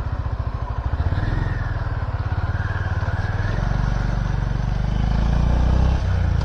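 Honda CB350RS single-cylinder engine running under way with an even, low pulsing beat. It grows a little louder as the revs rise partway through.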